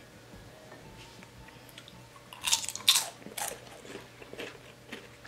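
Several sharp crunches in quick succession about two and a half seconds in, followed by a couple of fainter ones.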